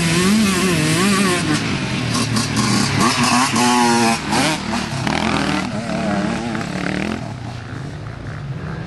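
Dirt bikes' engines revving and accelerating, the pitch rising and falling as the riders work the throttle. One bike revs up sharply about three to four seconds in, and the engine sound thins out and gets quieter near the end.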